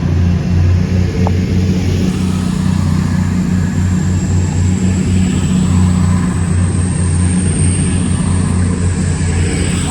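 Class 222 Meridian diesel multiple unit moving through the station, its underfloor diesel engines giving a loud, steady low drone, with a thin high whine rising slightly from about two seconds in.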